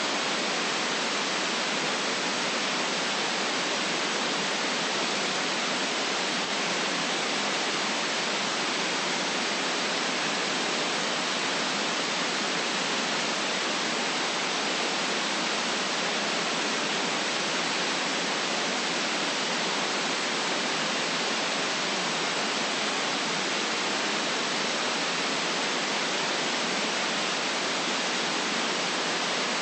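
Continuous white noise: a steady, even hiss that never changes, with almost no bass.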